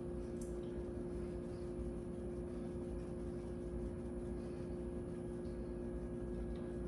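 A steady hum with a few fixed tones, like a running appliance or ventilation, with a few faint light ticks over it.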